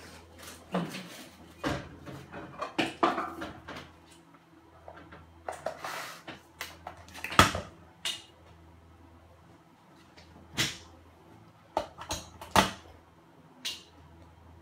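Scattered knocks and clicks of objects being handled in a small room, the sharpest about seven seconds in, over a faint low hum.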